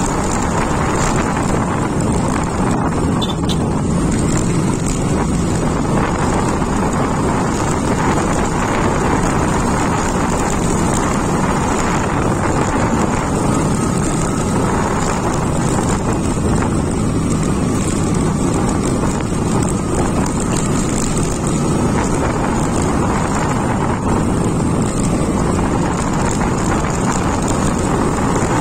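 Motorcycle engine running steadily on the move, with wind rushing over the microphone.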